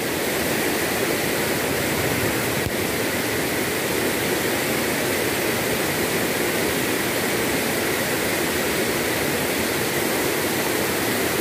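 Rain-swollen, muddy river rushing and churning over rocks close by: a steady, even water noise.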